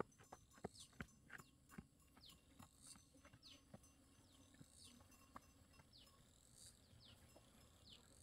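Faint outdoor ambience: short high chirps, each falling in pitch, repeated irregularly every half second to a second, over a thin steady insect drone. Scattered soft clicks come in the first couple of seconds.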